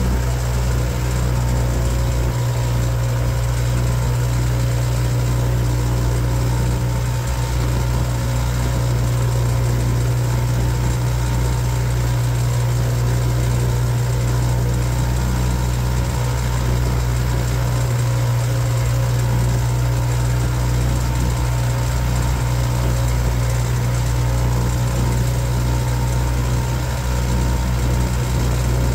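Boat motor running at a steady speed, a constant low drone that does not change.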